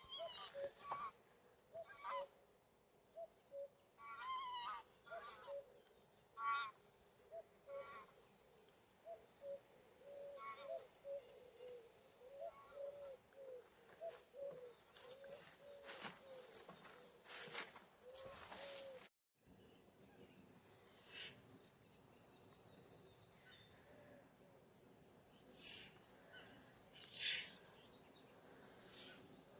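Wild birds calling on a marsh. For the first two-thirds there is a long run of short, low calls, about two a second, with higher chirps and song over them. After a sudden break only the higher chirps and song remain.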